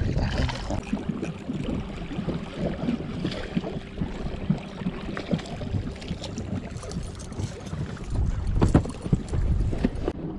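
Wind buffeting the microphone over water lapping at a small boat, with a splash at the start as a fish is dropped back into the water. A few sharp knocks near the end as another fish is swung aboard.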